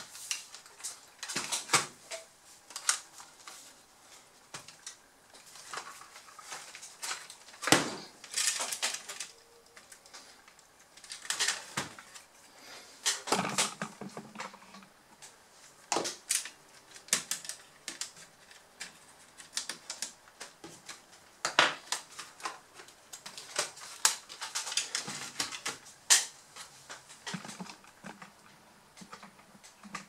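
Irregular clicks, taps and knocks of plastic laptop casing parts and a screwdriver being handled as a Dell Inspiron 1545 is taken apart, with a few sharper knocks in among lighter clatter.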